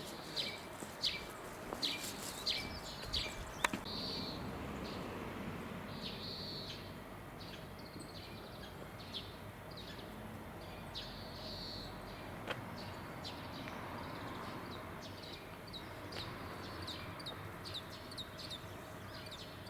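Small birds chirping: short, sharp high notes about twice a second for the first few seconds, then more sparsely, over steady background noise.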